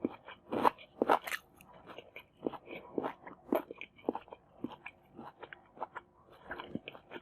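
Close-miked eating sounds: crisp crunching bites, loudest about a second in, followed by a steady run of moist chewing clicks.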